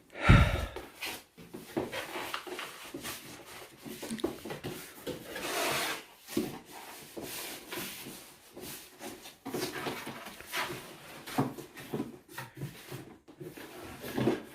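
Gift packaging being handled and unpacked: irregular rustling, rubbing and small knocks, with one loud thump just after the start.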